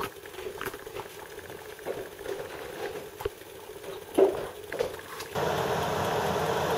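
Pink soft drink boiling in a glass beaker on a radiant electric hob: irregular bubbling pops and ticks. About five seconds in, the sound switches suddenly to a steadier, louder hiss of vigorous boiling.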